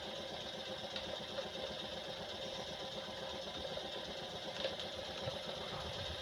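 Jensen Model 50 model steam engine running at a steady speed, a fast even mechanical patter.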